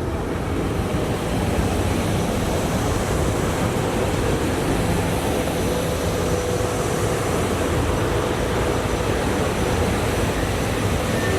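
SEPTA electric commuter train passing: a steady rush and rumble of wheels on rail that builds over the first second or two, with thin steady whining tones from the train's electrical equipment.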